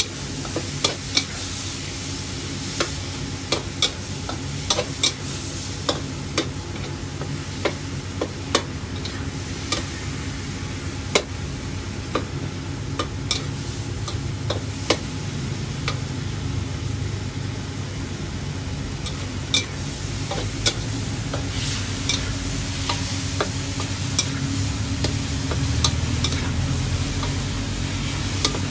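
Chicken and vegetables sizzling in a steel wok as a metal spatula scrapes the pan and strikes it in sharp clanks. The clanks come every second or so and grow sparser in the second half, over a steady low rumble.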